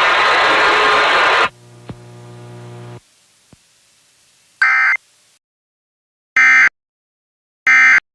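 Loud radio static that cuts off after about a second and a half, then a faint hum, one short electronic burst, and two short data bursts about a second and a quarter apart. These are the Emergency Alert System's SAME end-of-message codes that close a broadcast weather warning.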